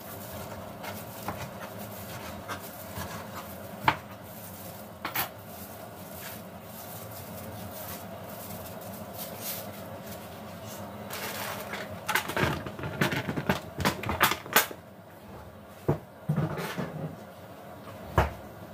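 Kitchen clatter: scattered knocks and clinks of dishes, pots and utensils being handled, thickest about twelve to fifteen seconds in, over a steady background hum.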